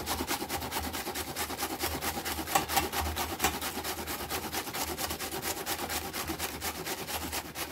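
A half head of cabbage rasping back and forth on a stainless-steel hand grater in fast, even strokes, several a second.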